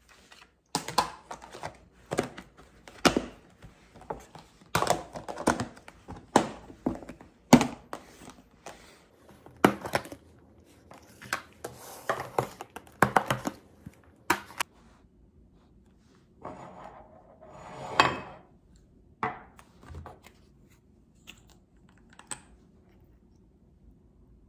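Plastic food-storage containers and their snap-on lids clicking and knocking against a countertop as they are opened, shut and set down, a dozen or more sharp knocks in a row. Later come two short rustles and a few lighter clicks.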